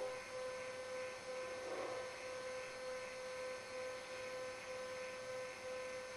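Steady electrical hum: one constant mid-pitched tone with fainter higher tones, over a background hiss.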